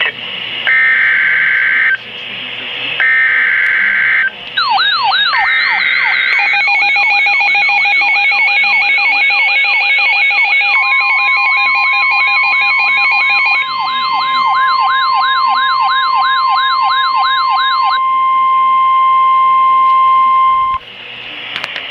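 Emergency Alert System tones. Three short buzzy digital header bursts come first. From about four seconds in, a fast wailing siren sweep, about two a second, is layered with rapid beeping. About halfway, a steady single alert tone joins, holds after the siren stops, and cuts off just before the end.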